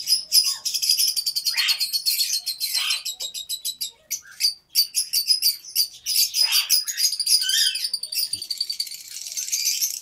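Lovebirds chirping rapidly and without a break, a dense high-pitched chatter of many short calls.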